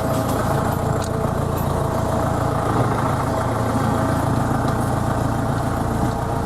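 Tractor engine running steadily as the tractor drives forward.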